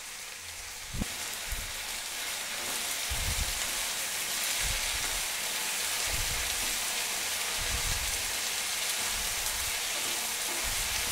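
Diced potatoes and onions sizzling in oil in a nonstick frying pan, a steady hiss that grows a little louder about a second in. A wooden spoon stirs them with soft, irregular knocks against the pan.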